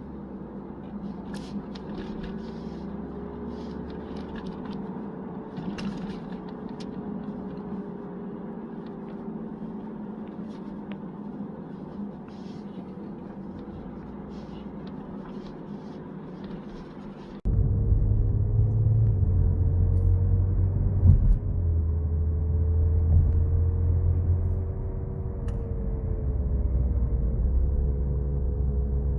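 A 2015 Audi A7 driving: road rumble with a steady hum whose pitch drifts slowly up and down with speed, the noise that a worn wheel hub bearing makes. About two-thirds of the way through, the sound changes abruptly to a louder, deeper rumble.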